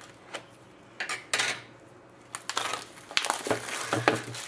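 Plastic shrink wrap being torn off a cardboard trading card box and crumpled in the hand: crackling and rustling, with a few sharp clicks and knocks of the box against the table top.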